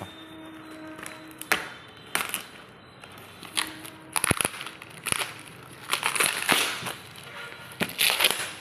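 Parcel packaging being cut open with scissors and torn, rustling and crinkling in irregular bursts several times.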